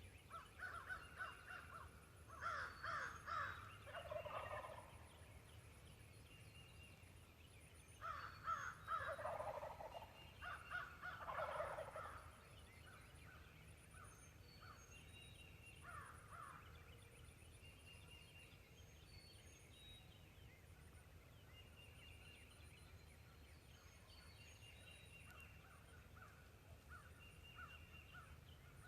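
Wild turkey gobbling: four rattling gobbles in two pairs within the first twelve seconds, each dropping in pitch as it ends. Between them, small birds chirp faintly.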